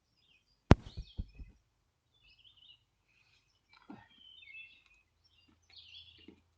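Birds chirping intermittently, with a loud sharp knock about a second in, two smaller ones right after, and another knock about four seconds in.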